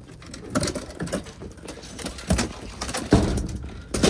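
Plywood crate lid with aluminum edge bracing being lifted off and handled: a series of wood-and-metal knocks and scrapes, the loudest about three seconds in.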